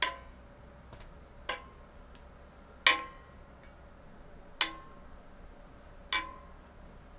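Metal cooking tongs clinking against a steel griddle pan five times, about a second and a half apart, each tap ringing briefly as bacon strips are picked up and laid down.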